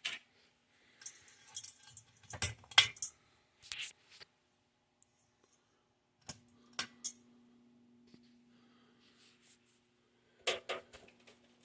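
Sharp clicks and light metallic rattling, typical of a ceiling fan's pull-chain switch being worked and its chain jangling. About six seconds in, a faint steady hum from the 42-inch Alaska ceiling fan's motor starts and keeps running.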